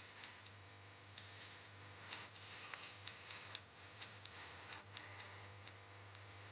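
Faint ticking of a countdown clock, short clicks about two to three a second, unevenly spaced, over a low steady hum.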